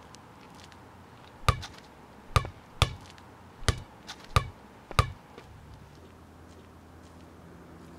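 Six sharp footsteps of sneakers striking concrete pavement close by, at an uneven walking pace, each with a short ring.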